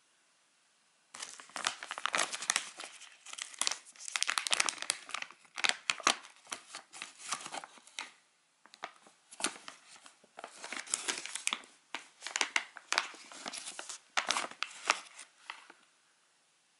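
Bark Thins snack pouch crinkling and crackling as it is handled, opened and rummaged in by hand for a piece of chocolate. The crinkling comes in a long run of crackles, with a short pause about eight seconds in.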